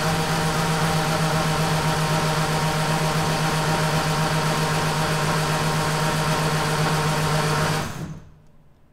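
Starter motor cranking an MG T-Series engine with the spark plugs out, so it spins fast and even without compression strokes: a loud, steady whine that stops about eight seconds in. The cranking is to build oil pressure after priming the oil system.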